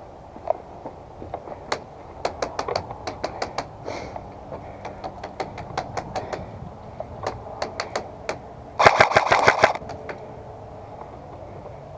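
Airsoft guns firing: scattered single shots and quick strings of shots, then a rapid full-auto burst of about a second, the loudest sound, roughly three-quarters of the way in.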